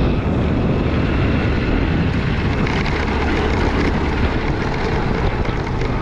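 Steady rumble of a moving road vehicle, with wind buffeting the microphone.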